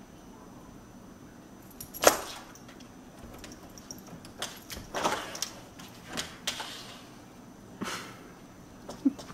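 A cat jumping up against a closed door and pawing at its round doorknob: a sharp knock about two seconds in, then a string of smaller knocks and rattles as the door and knob shake.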